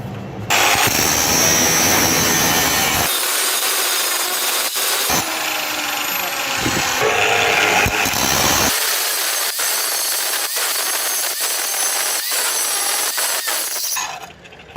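Workshop tools working the old hammer: a harsh grinding or sawing noise in a few cut-together segments, turning in the second half into regular strokes about twice a second.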